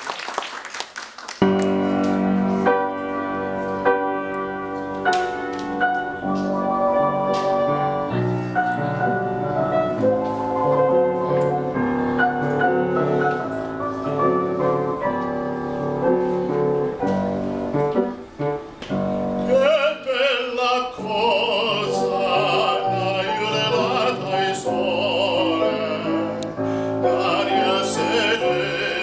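The last of a round of applause, then a grand piano playing an introduction. About twenty seconds in, a man's voice enters, singing in classical operatic style over the piano.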